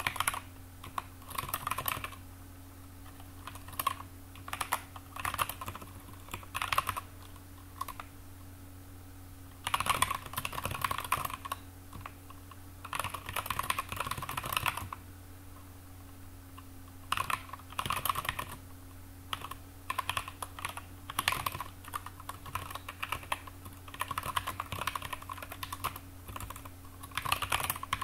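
Typing on a computer keyboard in quick bursts of keystrokes with short pauses between them, over a steady low hum.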